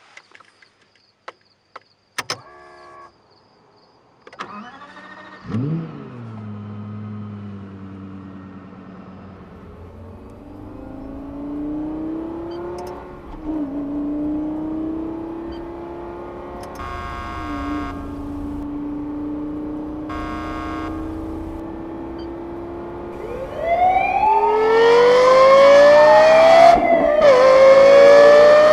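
A few clicks, then a car engine starts about four seconds in and runs, its pitch rising and falling as it pulls away through the gears. Near the end it gets much louder, revving up hard with sharp drops in pitch at each gear change.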